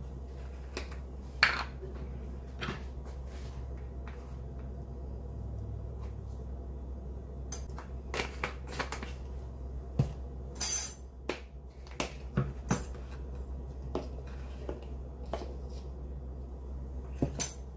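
Scattered light clicks and knocks of spice jars with plastic lids and a metal spoon handled against a ceramic bowl and a stone counter while seasoning, with the loudest clatter a little past the middle. A steady low hum runs underneath.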